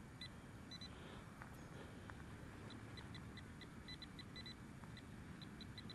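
TRX handheld pinpointer giving short, high beeps as it is probed toward a buried target at about 4 inches deep: scattered at first, then repeating faster near the end as it closes in on the target.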